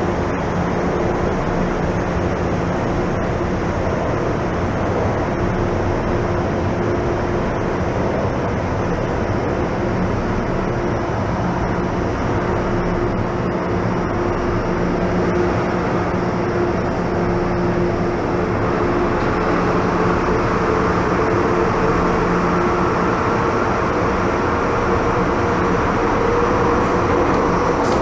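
MTR M-train electric multiple unit heard from inside the car, running at speed through the tunnel: a steady rumble of wheels on track with a steady motor hum. About two-thirds of the way through, a higher motor tone comes in and rises slightly as the sound grows a little louder.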